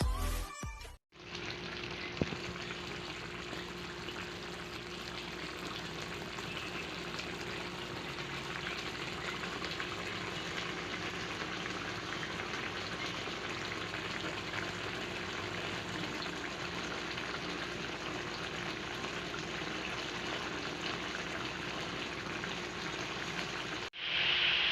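Crab and shrimp sizzling in butter in a pan: a steady, even crackling sizzle that starts after a cut about a second in.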